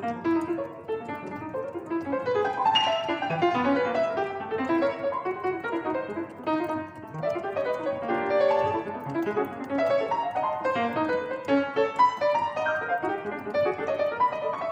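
Solo piano playing a dense, busy stream of quick notes across the middle and upper range, with no pause.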